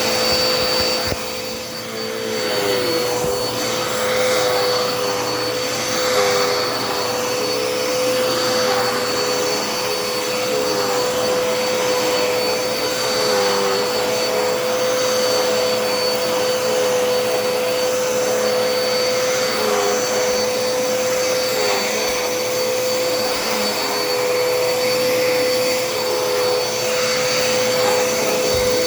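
Dirt Devil Endura Reach vacuum cleaner running with a steady motor whine, a lower tone in it dipping briefly every few seconds while it vacuums.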